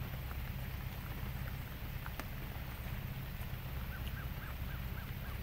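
A boat's motor runs steadily at low speed with a low, even hum. About four seconds in, a faint run of about eight quick chirps comes in, each about a quarter second apart.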